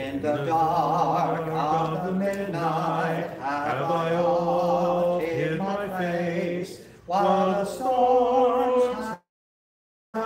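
A man singing a hymn in long held notes. The sound cuts out completely for about a second near the end, then the singing resumes.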